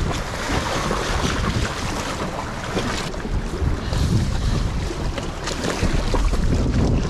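Wind buffeting the microphone over water sloshing and splashing against the rocky shore and the inflatable dinghy.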